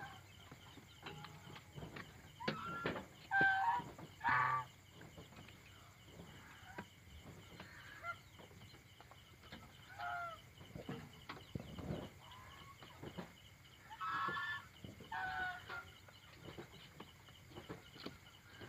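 Domestic chickens roosting in the dark, giving short clucking calls: a quick run of three or four a few seconds in, scattered single calls in the middle, and two more close together near the end. Faint rustles and taps are heard between the calls.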